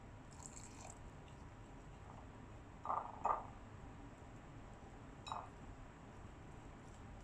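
Water poured from a small measuring cup into gram flour, then the wet batter stirred with a wire whisk: a brief pour near the start, then a few short wet squelches, the loudest two close together about three seconds in and another past five seconds.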